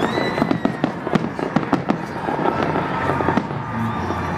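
Fireworks display: a dense, continuous run of bangs and crackling from many shells going off at once, over a steady low hum. A short high whistle sounds at the very start.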